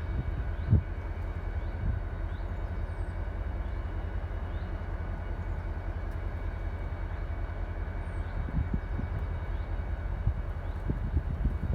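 Strong wind buffeting the microphone: a steady low rumble with a few louder gusts thumping through.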